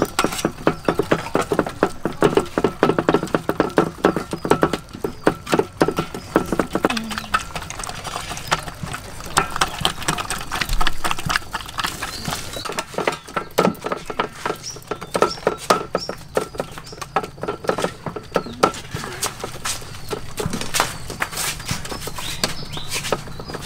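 Bundles of bamboo skewers jabbed rapidly into raw pork belly skin on a metal tray, a fast run of taps and clicks, pricking the rind before frying. The tapping is dense for the first several seconds, then more scattered.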